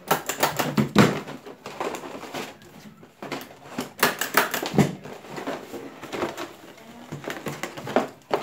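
Hand-held plier stapler driving staples through rolled piñata cardboard: about five sharp clacks spread a few seconds apart, amid cardboard rubbing and crinkling as the tube is handled.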